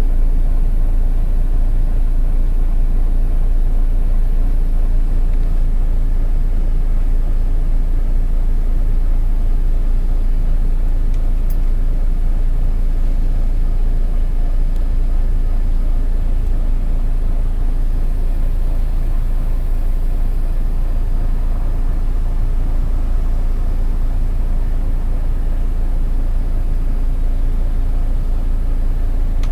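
Volvo B9TL double-decker bus heard on board while it is driven: steady low diesel engine rumble and road noise, with a constant drone in the engine note.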